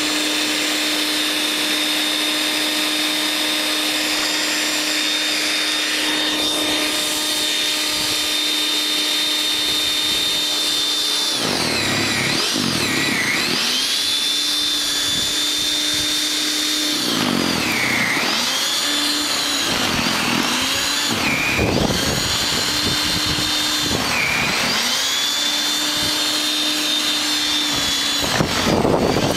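WEN 5662 13.5-amp electric snow thrower's motor running with a steady whine. From about a third of the way in, its pitch sags and recovers again and again as the motor struggles under the load of heavy snow.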